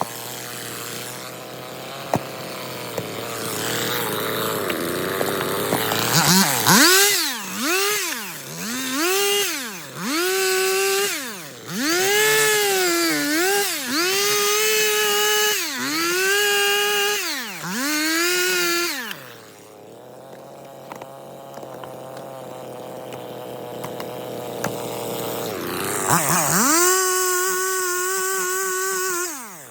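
Stihl MS 250 two-stroke chainsaw run at full throttle in a string of about seven quick rev-ups, each falling back before the next, while cutting firewood. It then drops back to a lower, steady speed for several seconds and revs up again near the end.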